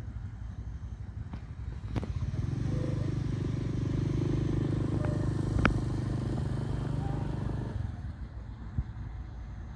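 A motor vehicle engine runs steadily, swelling about two seconds in and fading near the end, over wind buffeting the microphone. A sharp click stands out a little past the middle.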